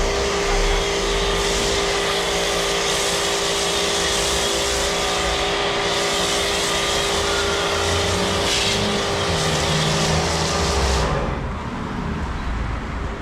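Car on the move: steady road and running noise that lessens a little about eleven seconds in.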